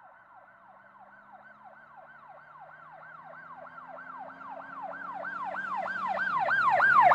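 A yelping siren, rising and falling in pitch about three times a second, growing steadily louder from faint to loud.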